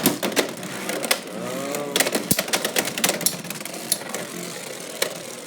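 Two Beyblade X spinning tops, Dransword and Hellsscythe, clashing in a plastic stadium: a rapid, irregular clatter of hard clicks and knocks as they collide and scrape.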